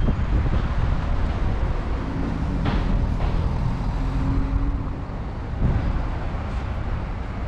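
Outdoor road ambience: a steady low rumble of wind on the microphone and passing traffic, with a faint engine hum in the middle and a brief knock about three seconds in.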